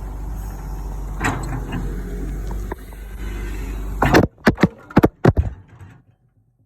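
Cat 315 LC excavator's diesel engine running steadily with small scrapes and clicks. About four seconds in the engine sound cuts off abruptly and a quick series of about six loud knocks and bangs follows, then it goes quiet.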